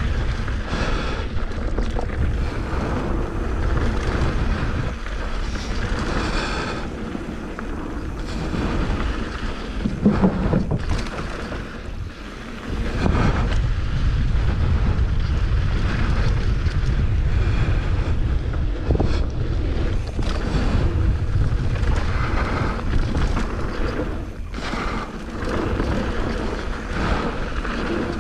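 Wind buffeting the microphone of a mountain bike rider's camera on a fast descent, over the rumble of tyres on a rough dirt and rock trail and the rattle of the bike. A louder knock comes about ten seconds in, and the low wind rumble strengthens a little after the middle.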